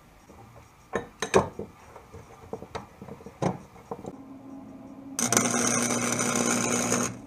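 Knocks and clinks of steel square-tube pieces being clamped together, then about five seconds in a two-second burst of crackling from a Forney Easy Weld 125 FC flux-core wire welder laying a tack on 1/8 inch steel, the loudest sound, over a steady low hum.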